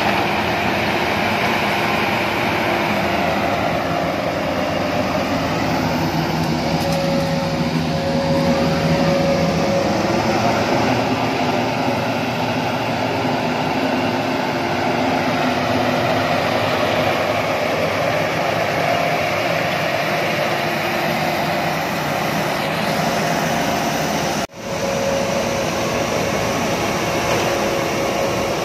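Yanmar YH7120 rice combine harvester running steadily while cutting and threshing standing rice: engine and threshing machinery at work, loud and continuous. The sound breaks off for an instant about 25 seconds in.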